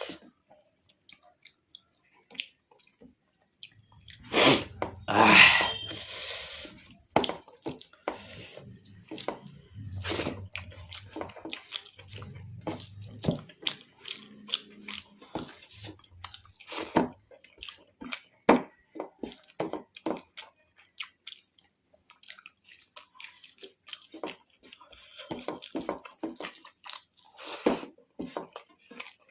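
Close-up eating sounds: wet squelching of rice and curry being mixed and eaten, with chewing and many lip smacks. The loudest stretch comes about four to six seconds in.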